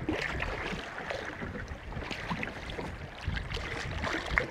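Water splashing and lapping at the side of a small boat as a hooked kahawai thrashes at the surface beside a landing net: many small irregular splashes over a low wash, with a sharper splash or knock near the end.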